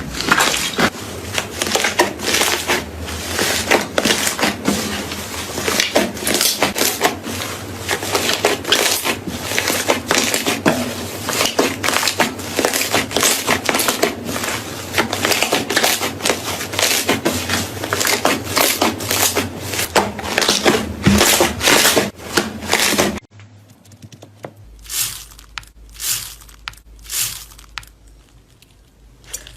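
Slime being squeezed and pressed by hand, with dense rapid crackling and popping. About 23 seconds in it cuts off abruptly to a much quieter stretch with only a few scattered crackles.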